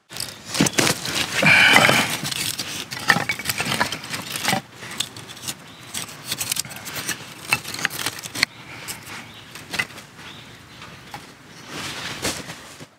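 Dry split kindling sticks and feather sticks clattering and knocking as they are stacked by hand in a stone fire pit: a run of light wooden clicks and scrapes, busiest and loudest in the first couple of seconds.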